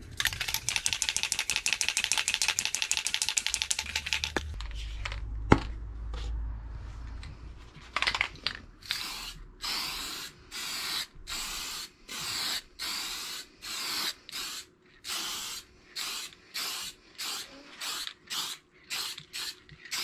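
Aerosol spray-paint can shaken fast, its mixing ball rattling, then after a single sharp knock a long run of short bursts of spray hiss, quicker towards the end, as steel hinges are sprayed black.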